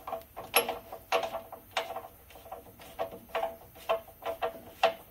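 Irregular, sharp metal clinks with a brief ring, two or three a second, as a steel bolt is worked into the holes of a car's lower control arm mounting bracket.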